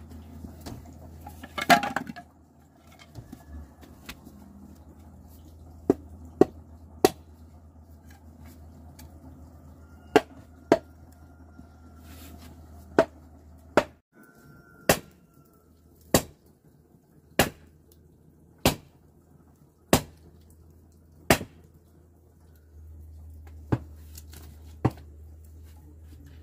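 A series of sharp single strikes, about one every second and a quarter, like a blade or tool hitting a hard surface, with a louder clattering burst about two seconds in.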